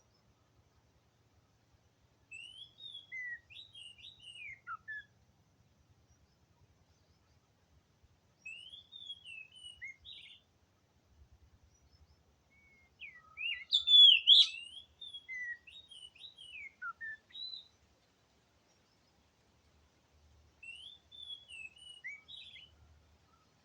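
Oriental magpie-robin (kacer) singing: four phrases of quick, sliding whistled notes with pauses of a few seconds between them, the loudest phrase in the middle.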